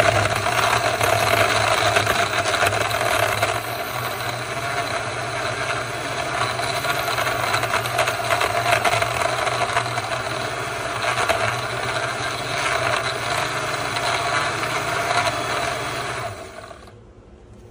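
Simplus ice-crushing blender running steadily, its motor and blades churning a thick orange drink in the jug. It stops near the end.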